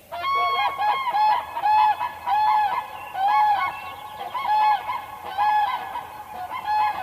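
A bird honking over and over in short, arched calls, some overlapping, about one or two a second.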